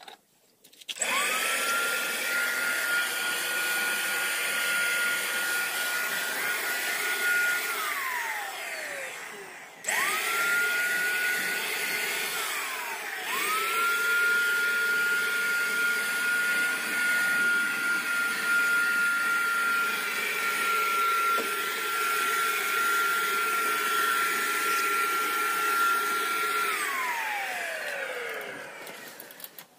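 A corded hand-held electric power tool's motor running in three bursts. Each time it spins up quickly to a steady high whine, then winds down with a falling pitch when released. The first run lasts about six seconds, the second is brief, and the third runs about thirteen seconds. It starts up again right at the end.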